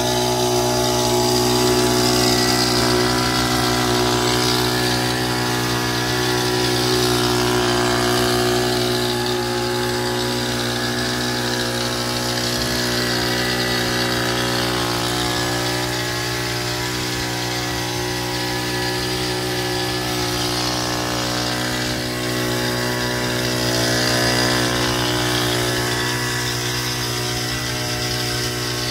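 Small engine of a motorized backpack mist sprayer running steadily at one constant speed while it sprays mist over the goats.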